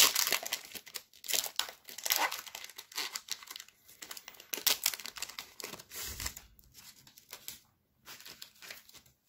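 Foil wrapper of a Pokémon booster pack crinkling and tearing as it is opened and the cards are pulled out. Irregular crackling rustles, loudest at the start and sparser toward the end.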